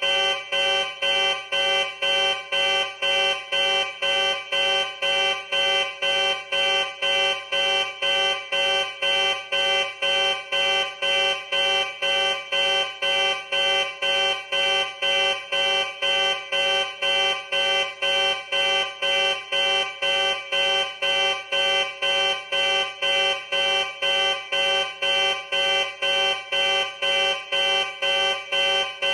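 Ship alert alarm: a buzzing, horn-like alarm tone of many stacked pitches, pulsing evenly about twice a second, like a navy or spaceship red-alert warning.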